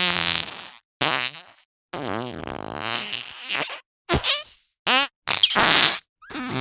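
Squishy fart putty squeezed to make a string of cartoon fart noises: about seven separate blasts, short and long, with pitch that wobbles and slides. The longest lasts nearly two seconds.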